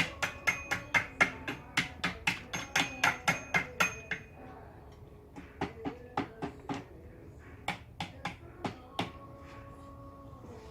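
A toy hammer tapping repeatedly on a hard object: quick taps about four a second for some four seconds, then slower, uneven taps, several with a short ringing tone.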